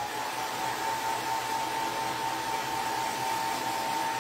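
Handheld hot-air dryer blowing steadily, a rush of air with a steady whine, drying freshly applied chalk paste. It cuts off abruptly near the end.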